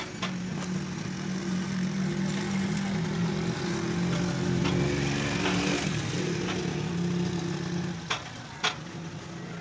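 An engine running steadily, growing a little louder towards the middle and dropping away about eight seconds in; two sharp knocks follow.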